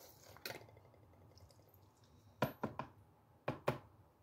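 Plastic snuffer bottle and gold pan being handled: a faint click early, then a quick run of sharp plastic clicks and knocks a little past halfway, and two more near the end.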